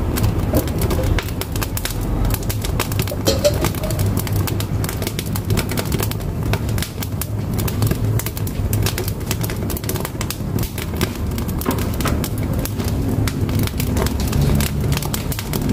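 Firewood burning in a wood-fired cooking stove: a steady low roar of flames with many sharp, irregular crackles and pops.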